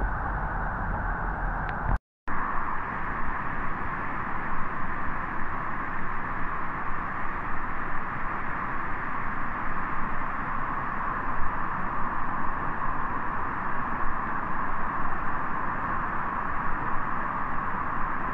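Floodwater rushing down a street in a muddy torrent: a steady, rushing noise that breaks off for an instant about two seconds in.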